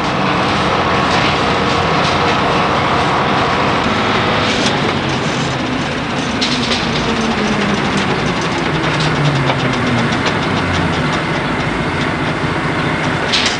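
Heavy road vehicle's engine running steadily under way, heard from the cab, its low pitch rising and falling, with a rapid clatter in the middle of the stretch.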